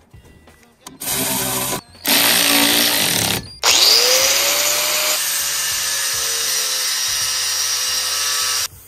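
Electric angle grinder running in three bursts. The last spins up with a rising whine about three and a half seconds in, cuts into metal, and stops abruptly near the end.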